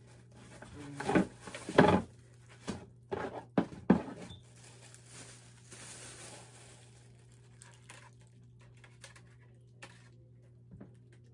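Clear plastic bag crinkling and rustling as a ring light is pulled out of it by hand, with several sharp handling knocks against the cardboard box in the first few seconds, then softer crinkling and a few small clicks.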